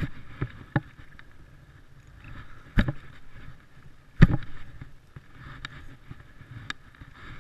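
A spinning reel being cranked to retrieve line, with a faint steady whirr and a few sharp handling knocks on the rod and camera, the two loudest about three and four seconds in.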